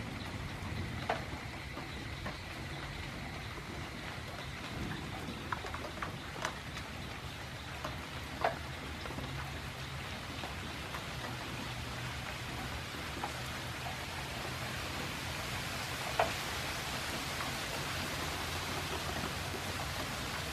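Steady rain falling as an even hiss, with scattered louder drops ticking close by, the sharpest about a third of the way in and again past three-quarters. A faint low hum runs underneath.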